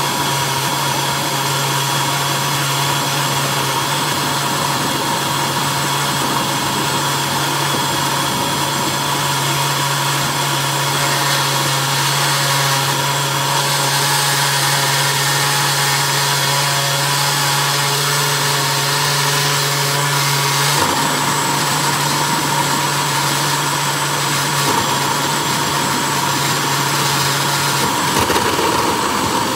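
Oster 6812-001 Core 16-speed blender running steadily, its blade blending a thick mix of berries and fruit in the glass jar to a smooth purée. The steady motor hum breaks briefly about two-thirds of the way through and changes tone near the end.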